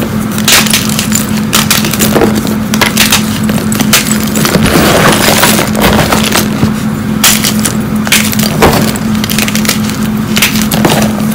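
Hard gym chalk chunks crunching and cracking under squeezing, pressing hands: a dense, irregular run of sharp, glassy crackles, over a steady low hum.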